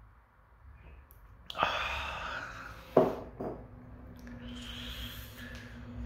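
A person's breath noises close to the microphone: a breath about one and a half seconds in and another near the end, with a sharp click between them.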